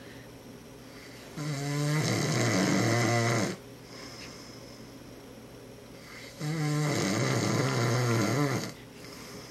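A man snoring in his sleep: two long snores, each about two seconds, the first about a second and a half in and the next about five seconds later.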